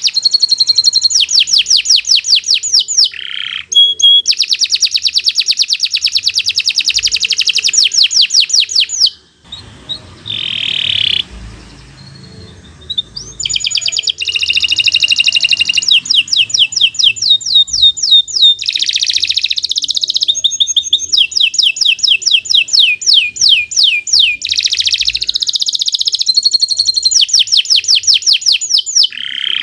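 Domestic canary singing a long, continuous song of rapid trills: fast runs of repeated high notes, switching from one trill to the next, with a short break about nine seconds in before the song resumes.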